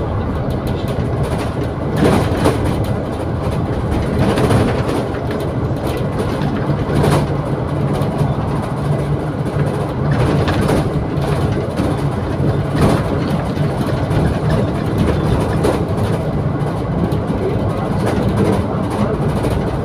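Double-decker bus heard from its upper deck while driving along at road speed: a steady engine and road drone, with a few short knocks and rattles from the bodywork.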